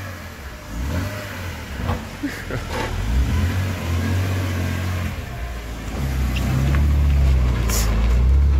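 BMW 330Ci E46's straight-six engine running as the car moves off slowly on full steering lock, its rumble growing louder about six seconds in.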